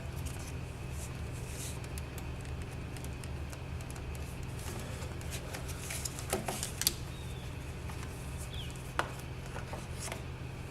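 Light clicks and taps of motorcycle parts being handled and fitted back into place, a cluster of them about six seconds in and one more near nine seconds, over a steady low hum.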